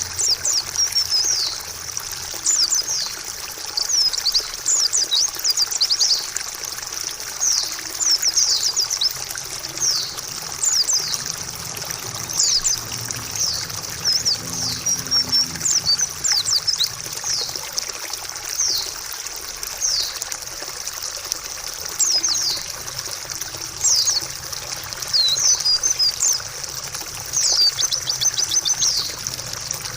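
White-eye (pleci) calling in short, high, downward-sweeping chirps, in quick clusters every second or two, over a steady trickle of running water.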